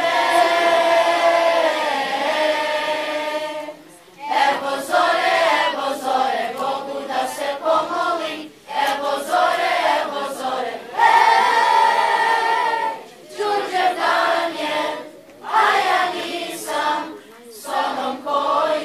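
Children's choir singing, in phrases separated by short pauses.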